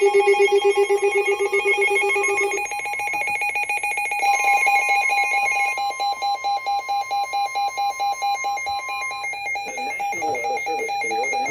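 Weather radio alert going off for a severe thunderstorm warning: loud, pulsing, ringing alarm tones that start suddenly. A steady tone joins for about five seconds in the middle, and a voice comes in near the end.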